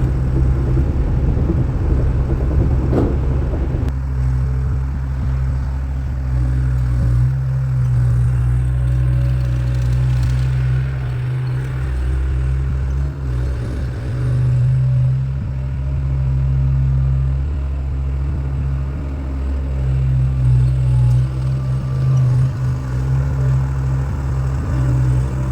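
Skid steer loader's engine running with a steady low drone that swells and eases a little, with a few knocks from the machine working.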